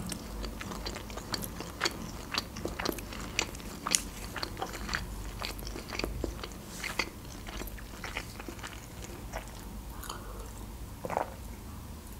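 A person chewing a mouthful of shrimp sushi roll, with many irregular wet mouth clicks and smacks, several a second.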